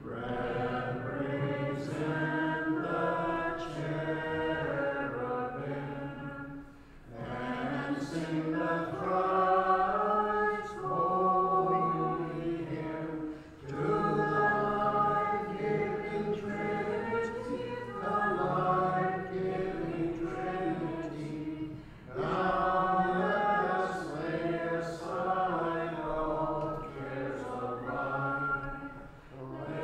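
Unaccompanied Ukrainian Catholic liturgical chant, sung in long phrases with brief breaks every six to eight seconds.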